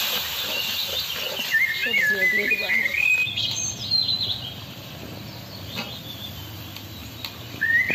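Birds singing: a run of short, stepped whistled notes that climb in pitch over a couple of seconds, with another phrase starting right at the end.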